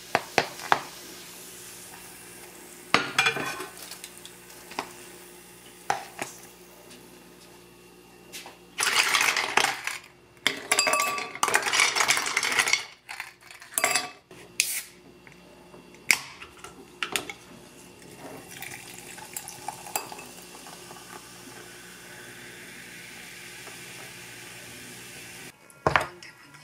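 Kitchen handling sounds: utensils stirring noodles in a paper cup, then ice cubes clattering in a plastic container and clinking into a glass, with scattered sharp knocks.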